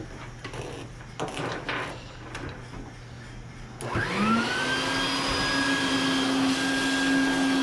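Wet/dry shop vacuum switched on about four seconds in: its motor spins up quickly to a steady, loud whine with a rushing hiss of air. A few light knocks and clicks of handling come before it.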